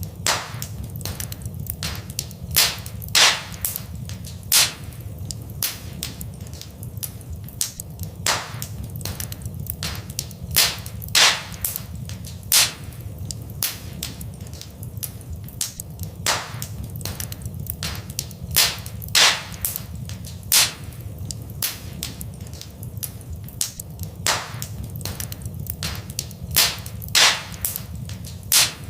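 Wood fire in a fireplace crackling, with sharp irregular pops, a few loud ones every couple of seconds, over a steady low rumble.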